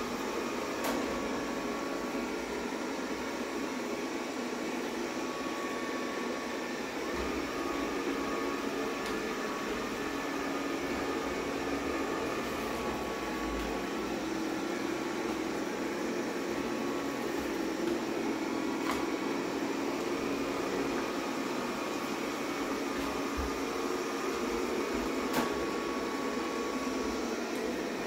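Xiaomi Mi Robot Vacuum-Mop Essential running: a steady whir from its suction fan and brushes, with a few light clicks.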